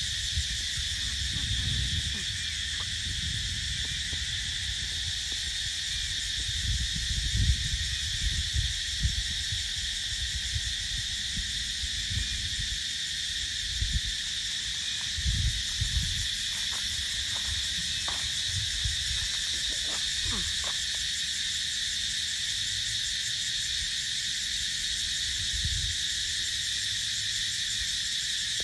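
Dense chorus of cicadas: a steady, unbroken high buzz at several pitches at once. A low rumble comes and goes underneath.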